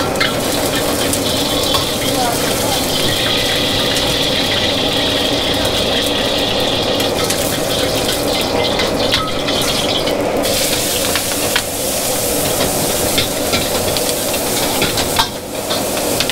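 Busy seafood-market din: a steady hiss with frequent small clicks and clatter, and a murmur of voices underneath.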